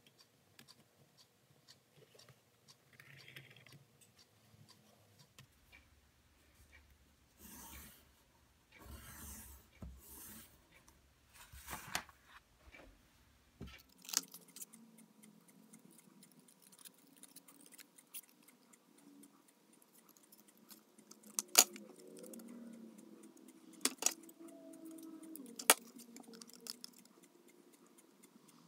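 Quiet bench handling of a cardboard template: cardboard rustling and pencil scratching, then scissors cutting the cardboard, with three sharp snips in the second half.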